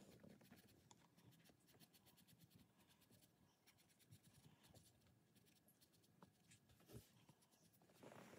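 Pencil scratching faintly on paper in quick short strokes, with one brief soft knock about seven seconds in.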